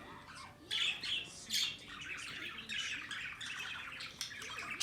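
Lovebirds squawking and chattering: two sharp squawks in the first second and a half, then a continuous run of rapid chatter and another loud squawk at the end.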